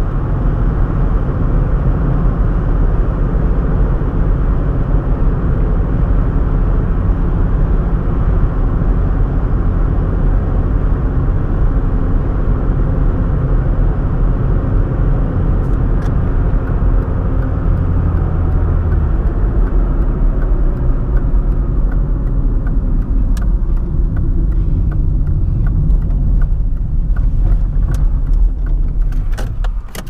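Steady engine and road noise heard inside a Volkswagen car's cabin as it drives along a highway. Near the end it slows and turns onto gravel, and small stones crackle and tick under the tyres.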